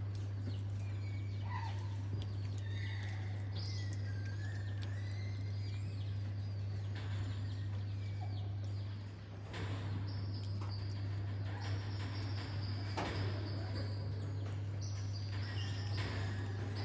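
High chirping animal calls over a steady low hum, with a few short clicks in the second half.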